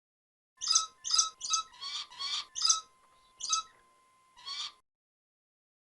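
Red macaw squawking: about eight short, harsh calls in quick succession, then a brief pause before the last two.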